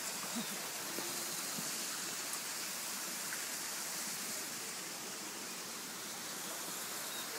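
A steady, even rushing hiss with no distinct sounds standing out from it.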